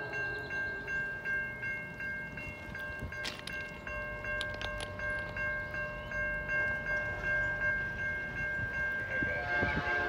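Level-crossing warning bell ringing steadily for an approaching CN freight train. Near the end a lower horn chord and the low rumble of the nearing train come in.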